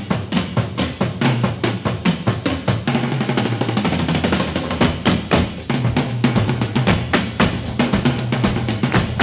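Drum-driven background music: a drum kit keeping a busy, steady beat with bass drum and snare hits over a moving bass line.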